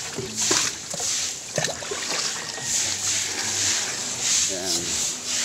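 Water splashing and sloshing as it is scooped from a large plastic tub with a plastic dipper, in repeated swishing strokes about every second or less.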